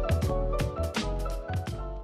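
Outro background music with a steady drum beat, about two beats a second, over bass and sustained instrument notes.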